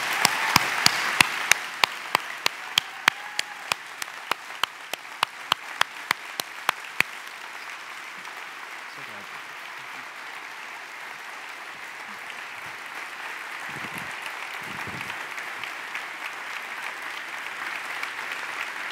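Audience applauding, with one person's sharp, close claps, about two or three a second, over the first seven seconds. The applause grows louder again near the end.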